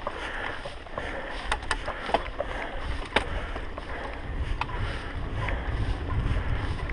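Mountain bike rolling over a dirt singletrack: a steady rumble of tyres and wind on the camera microphone, growing louder near the end, with a handful of sharp clicks and rattles from the bike, the loudest about three seconds in.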